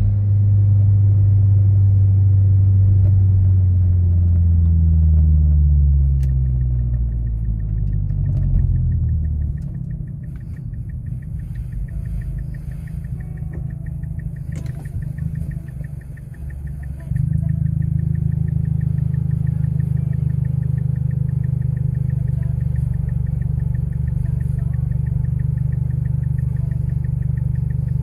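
Cabin drone of a turbocharged 2.3-litre four-cylinder Mazdaspeed6 engine breathing through a 3-inch exhaust and Apexi N1 muffler. The engine note falls as the car slows and settles to a quieter idle. About seventeen seconds in, a steady low hum abruptly grows louder and holds while the car is stopped.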